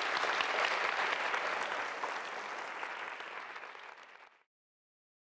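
Auditorium audience applauding, loudest at the start and fading, then cutting off suddenly about four and a half seconds in.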